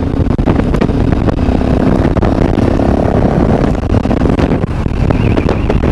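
Sinnis Terrain 125's single-cylinder engine running under way through a full stainless Torro exhaust, its note shifting a few times with the throttle, over steady wind rumble on the bike-mounted microphone.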